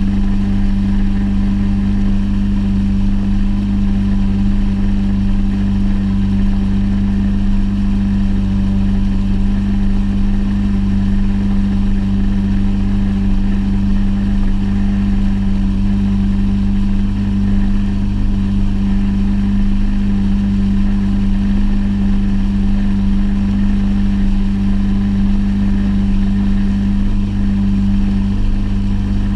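Fishing boat's motor running steadily underway, a constant drone that holds one pitch throughout.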